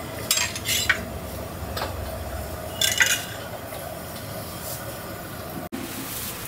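Steel serving ladles clinking against stainless steel pots as food and chutney are dished out, several sharp clinks in the first three seconds over steady background noise.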